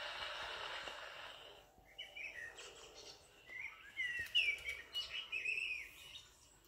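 A children's sound book's built-in speaker playing a recorded baby bird's 'tweet tweet': a run of short, high chirps that bend up and down. Before them, a recorded rain patter fades out in the first second or so.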